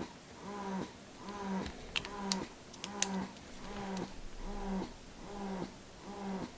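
Newborn baby crying in a steady rhythm of repeated wails, about one a second, each falling in pitch at its end. A few sharp clicks come around the middle.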